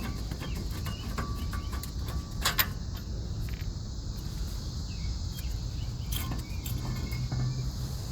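A few sharp metal clinks of hand tools and brake parts during front-wheel brake and hub work, the loudest about two and a half seconds in and another about six seconds in, over a steady high hiss of outdoor background.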